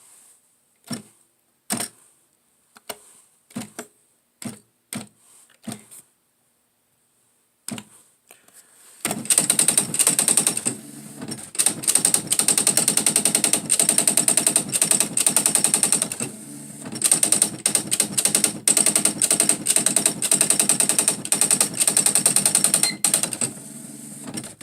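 Smith Corona SE 200 electronic typewriter: single key strikes spaced about a second apart, then about nine seconds in the machine starts printing by itself, a fast, continuous run of strikes with brief pauses that lasts until near the end.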